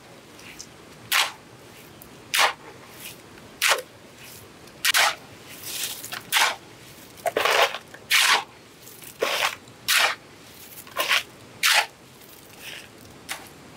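A bamboo-handled shovel scraping and digging into a pile of gravel, sand and cement, turning the mix by hand. Repeated gritty scrapes come about once a second.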